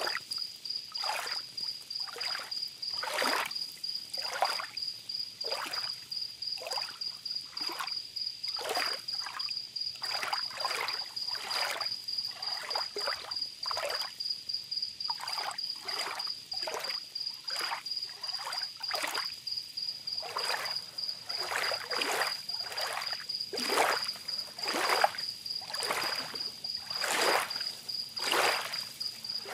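Small sea waves lapping and splashing on a beach in irregular washes, about one or two a second, with crickets chirping in a steady high trill throughout.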